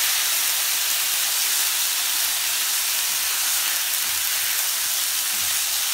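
Quinoa stir-fry sizzling steadily in hot grapeseed oil in a pan, just after coconut aminos have been poured in.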